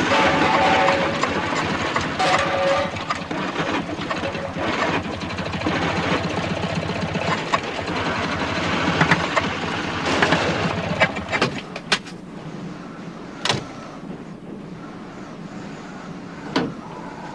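Strong gusting wind, a loud rushing sound effect, that dies down about twelve seconds in, followed by a few sharp clicks or knocks.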